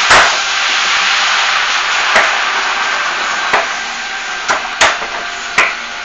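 Butcher's blade chopping through chicken: a loud chop at the start, then about five more sharp chops at uneven intervals, over a steady hiss.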